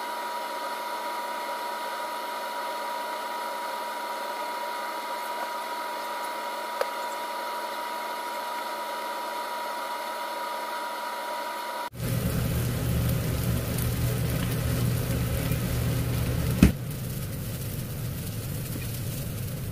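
Steady whir of a small motor, with a clear high hum through the first part. About twelve seconds in it switches abruptly to a louder, deeper hum, and near the end a single sharp click sounds, after which the deeper hum stops.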